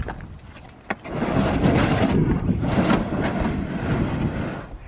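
A large plastic storage tote loaded with a folded e-bike is shoved and scraped across a pickup's ribbed truck-bed mat. There is a knock about a second in, then a few seconds of heavy rumbling scraping that stops just before the end.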